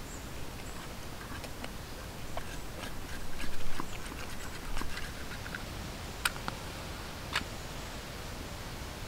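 Knife carving a wooden spoon by hand: a run of short scraping cuts and small clicks of the blade on the wood, busiest about three and a half seconds in. Two sharp clicks follow near the end.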